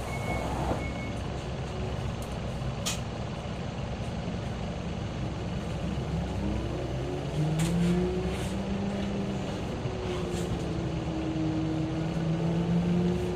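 Isuzu Erga Hybrid city bus running, heard from inside the bus. There is a brief hiss about three seconds in, then from about six seconds the drive's pitch rises and holds as the bus accelerates.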